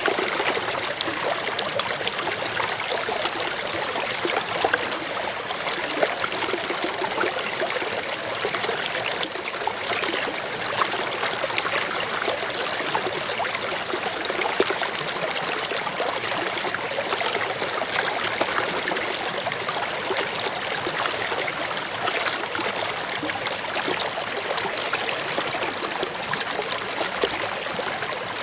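A shallow stream running steadily, water trickling and burbling over stones.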